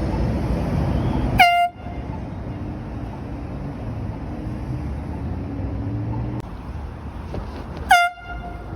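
Handheld air horn blasted twice in short, loud bursts about six seconds apart, each rising briefly in pitch as it starts. Steady background noise runs between the blasts.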